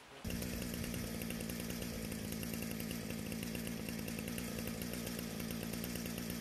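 Two-stroke chainsaw idling steadily, with no revving.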